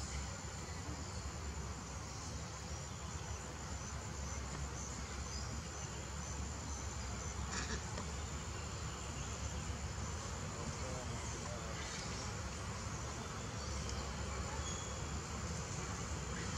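Insects trilling steadily: a constant high-pitched buzz with a faster pulsing chirp just beneath it, over a low outdoor hiss. A faint tick is heard twice.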